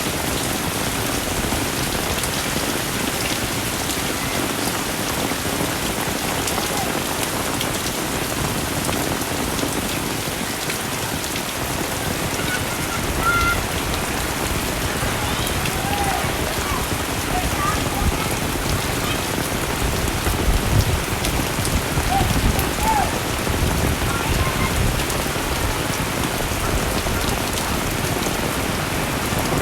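Heavy rain falling steadily, an even hiss of drops on surfaces. A few low bumps come about two-thirds of the way through.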